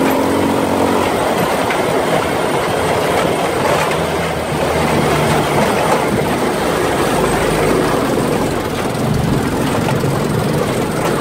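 An off-road buggy's engine running as it drives over a rough dirt track, heard from on board, with steady rattling and clattering from the frame and wheels over the bumps.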